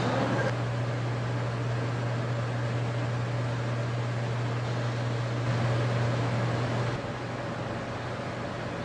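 Steady low mechanical hum with an even hiss over it; the hum drops off about seven seconds in, leaving the hiss a little quieter.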